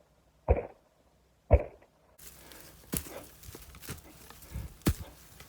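Two loud, dull thumps about a second apart, followed by several lighter knocks over a low outdoor background.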